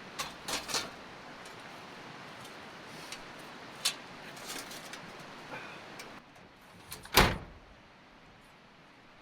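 A few light clicks and knocks, then a vehicle door shut with one heavy thud about seven seconds in. A steady rushing background drops away shortly before the thud.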